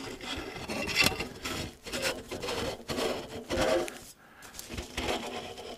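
Metal stovepipe being pushed and twisted through a tent's nylon chimney sleeve by gloved hands: uneven rubbing and scraping of pipe against fabric, in several separate strokes.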